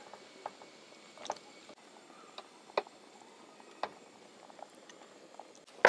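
Tongs clicking and tapping against a pan as they stir noodles in boiling water, a scattering of light clicks over a faint water sound, with a sharper knock near the end.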